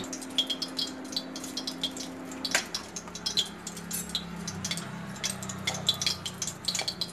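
Oil heating in an iron kadai over a gas burner, crackling with scattered small pops as it comes up to heat, over a low steady hum.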